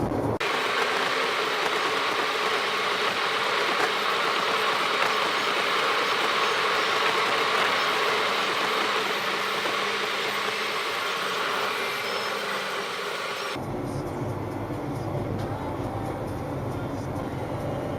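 Steady road noise inside a moving vehicle, mostly an even hiss. About 13 s in it changes abruptly to a deeper, duller rumble.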